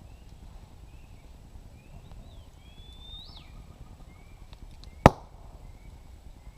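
Birds calling in short high chirps, with one longer rising whistle that drops off about three seconds in, over a low rumble; a single sharp knock about five seconds in is the loudest sound.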